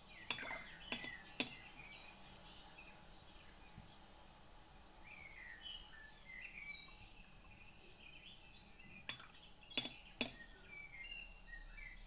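Sharp clinks of a paintbrush against hard painting gear, three in the first second and a half and three more between about nine and ten seconds in. Birds chirp faintly in between.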